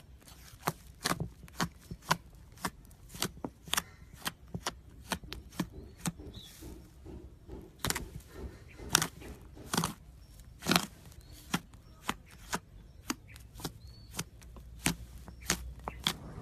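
Slime being squeezed and worked by hand, giving a run of sharp clicks and pops, about two to three a second, at irregular intervals.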